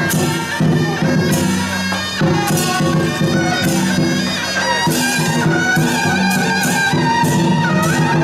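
Loud traditional procession band music: a reedy, bagpipe-like wind instrument playing held notes over repeated percussion strikes.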